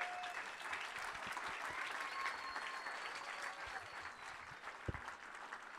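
Audience applauding: a dense patter of clapping that eases off a little toward the end, with one low thump about five seconds in.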